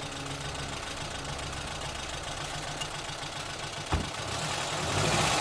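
Car engine running at low revs, with a single sharp thud about four seconds in; the engine grows louder near the end.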